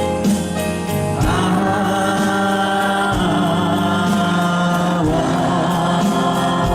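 Live band music with a crowd of many voices singing along in chorus, the sound filling out about a second in.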